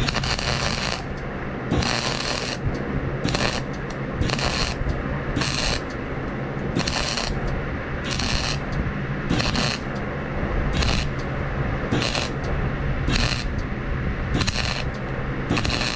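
Arc welding on a rake in short stitch welds: about a dozen bursts of arc crackle, each under a second long, roughly one a second, over a steady low hum.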